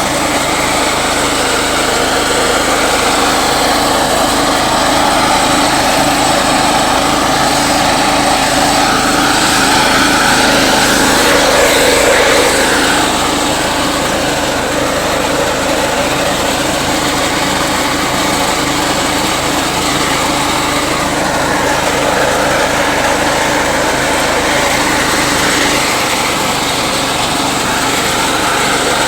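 Small engine of a walk-behind crop reaper running steadily, swelling a little in level and pitch about ten to twelve seconds in.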